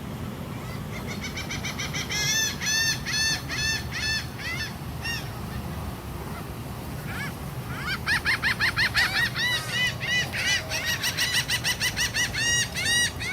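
Water birds calling: a fast run of repeated honking notes, about three or four a second, then a pause and a second, longer and quicker run.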